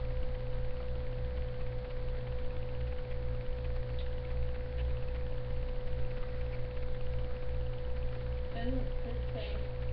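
Steady electrical whine at one pitch over a low, unevenly pulsing hum, with a few faint short sounds near the end.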